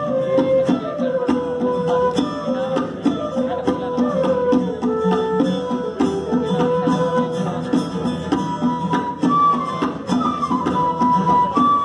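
Live instrumental trio of acoustic guitar, flute and dholak. A flute melody is held in long notes with slides, over strummed guitar and a steady dholak beat. About nine seconds in, the flute line moves up to higher notes.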